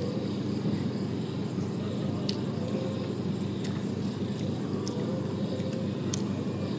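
A steady low rumble runs throughout, and a few short, sharp clicks come about every second and a half: mouth sounds of someone chewing roast chicken.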